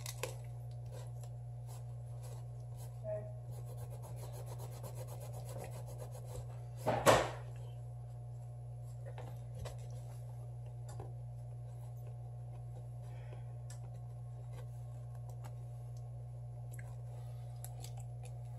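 Fingers and a cloth rubbing and scraping on a Samsung Galaxy S7 edge's metal midframe, with small ticks and one short, loud knock about seven seconds in, over a steady low hum.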